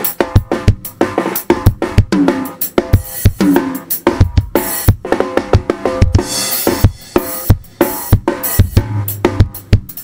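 Acoustic drum kit played in a fast groove: bass drum and snare hits with tom fills whose pitch drops after each stroke, and several cymbal crashes through the middle.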